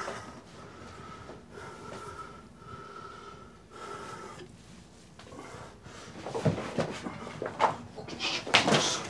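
A few knocks and bumps of a door and footsteps in a small room, sharpest near the end. Before them, a faint steady high tone comes and goes in short pieces.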